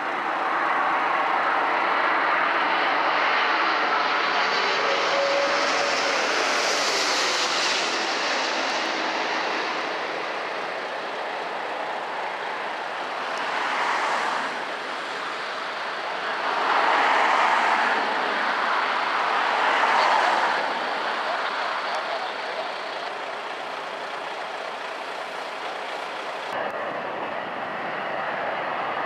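Airbus A330 jet engines: the airliner comes in low on approach and passes with a rising and then fading whine. After touchdown, loud swells of engine noise come at about 14, 17 and 20 seconds in, typical of reverse thrust on the landing roll. A steadier jet hum follows as it rolls along the runway.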